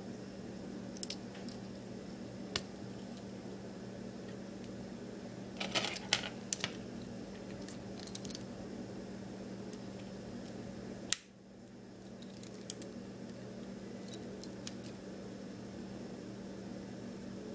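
Short plastic clicks and snaps as the small torch light housing of a car key is handled and pressed back together, with a little jangle of the key; a cluster of clicks about six seconds in and one sharp click near the middle. A steady low hum runs underneath.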